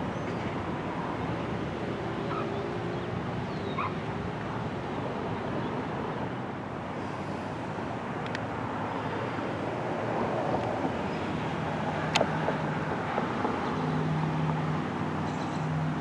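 Steady rumble of highway traffic, with no siren sounding, and a single sharp click about twelve seconds in.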